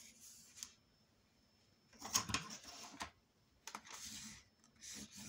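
White cardstock rustling and sliding against the paper trimmer's board as it is handled and lined up, in a few short bursts with some light ticks; the longest and loudest burst comes about two seconds in.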